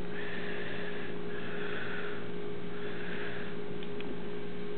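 Steady electrical hum with a constant low drone, and a faint soft hiss that rises and fades three times.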